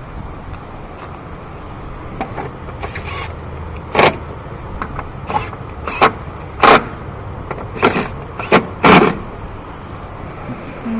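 A run of sharp clacks and knocks, about seven of them over five seconds starting about four seconds in, from engine intake parts being handled and fitted back in place by hand.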